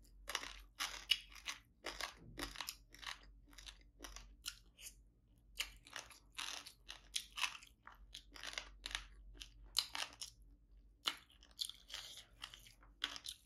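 Close-miked chewing with a rapid run of crunches, two or three a second, from a mouthful of rice and crispy fried tilapia, with a brief pause near the end.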